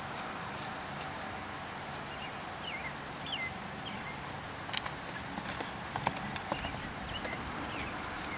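Hoofbeats of a ridden American Quarter Horse mare on a dirt and grass paddock, with a few sharper, irregular thuds in the second half as she comes closer, over a steady outdoor hiss.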